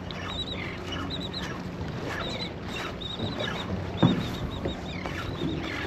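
Runs of quick, high, squeaky bird calls repeating over the steady low hum of a boat, with one sharp thump about four seconds in.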